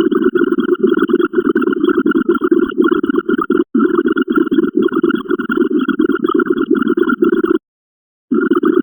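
A rapid, steady stream of short repeated electronic sound-effect blips, one per counting step, all at the same few pitches. They break off for an instant about halfway through and stop for just under a second near the end before starting again.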